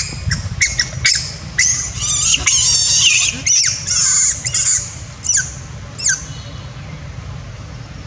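Young long-tailed macaque screaming very loudly in a run of shrill, high-pitched shrieks, angry and scared. The last two are short falling screeches, and the screaming stops about six seconds in.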